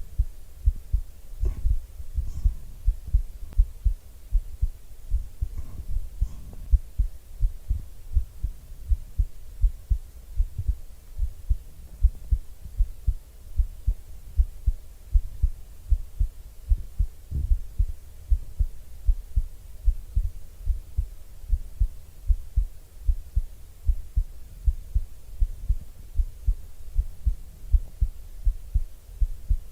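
A person's heartbeat picked up close for ASMR: low thumps in a steady, even rhythm over a faint hum, with a few faint clicks in the first seven seconds.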